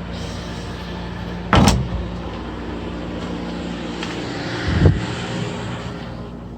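A steady low mechanical hum over a background hiss, broken by a loud thump about a second and a half in and a softer, duller thump near five seconds.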